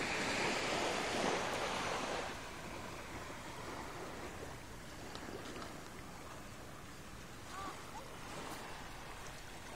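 Small waves lapping and washing onto a sandy beach, a steady rushing hiss of surf that is louder for about the first two seconds, then settles.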